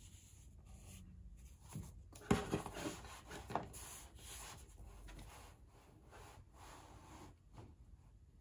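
A large cloth-topped, rubber-backed gaming mouse pad being handled and laid flat on a wooden desk, hands rubbing over its fabric. A few louder knocks and rustles come about two to three and a half seconds in, then softer rubbing.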